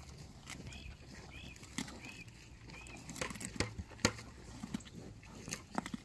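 Cattle chewing and tearing at cauliflower leaves and carrots: scattered crunches and rips, a few of them louder in the second half.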